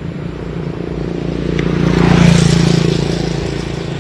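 A motor vehicle passing close by on the road, its engine hum and tyre hiss building to a peak a little past halfway and then fading.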